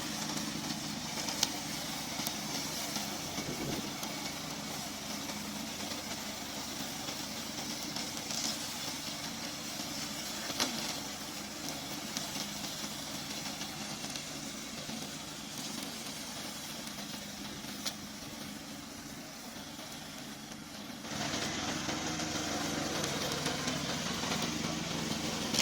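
Engine of a remote-control lawn mower running steadily, with an abrupt step up in loudness about three-quarters of the way through.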